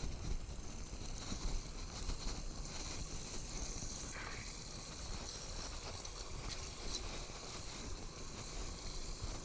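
Shallow floodwater splashing and trickling around a leaf-clogged storm-drain grate, a steady hiss, with wind rumbling on the microphone.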